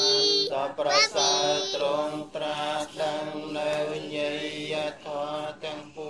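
A group of voices chanting Buddhist verses in Pali. A small child's high voice rings out loud and close twice in the first two seconds.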